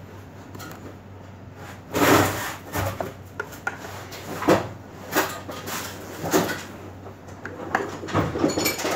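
Small parts and pipe fittings being handled and picked through: irregular knocks and clatter, starting about two seconds in, over a faint steady hum.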